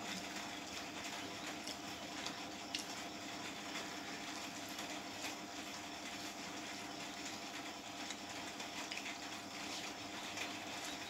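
Eating by hand: many small wet clicks and smacks from chewing and from rice and chicken curry being squeezed and mixed with the fingers on a plate, over a steady low hum.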